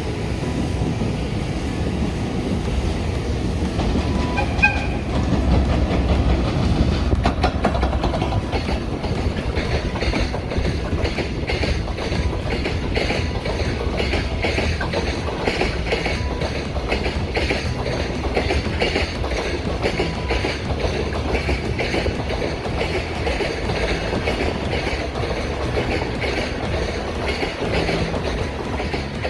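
Freight train passing with its wheels clattering over the rail joints, and a short courtesy toot of the locomotive's horn about five seconds in.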